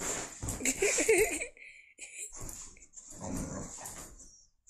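A dog vocalizing in short bursts, loudest in the first second and a half, with a second burst a couple of seconds later.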